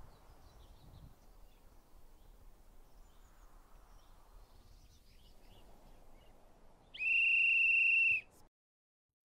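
Faint outdoor ambience with scattered bird chirps, then, about seven seconds in, a single loud whistle blast: one steady high note held for just over a second and cut off sharply.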